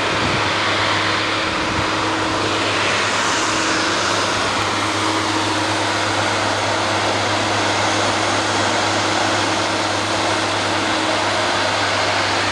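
Steady engine drone with a constant low hum under a loud hiss, like a large machine running without a break.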